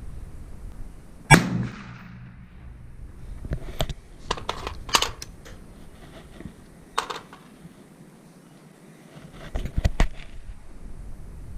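Suppressed 5.56 rifle, fitted with a Lahar 30 silencer, fired once about a second in: a sharp crack with a short tail. Several quieter sharp clicks and knocks follow.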